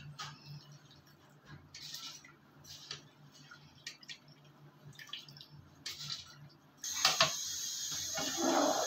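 Water in a large aluminium cooking pot giving small scattered pops and clicks. About seven seconds in a steady hiss comes up, and a ladle stirs the water and scrapes in the pot.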